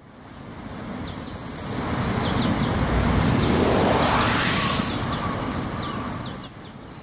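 Small birds chirping in short runs of quick high notes, three times, over a broad outdoor rushing noise that swells to a peak about four seconds in and then fades.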